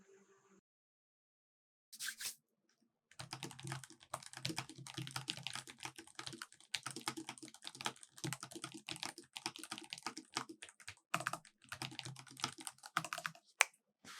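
Typing on an ASUS ROG Falchion RX Low Profile keyboard with low-profile optical switches: a fast, continuous run of key clicks lasting about ten seconds, broken by a few brief pauses, after a short burst of keys about two seconds in.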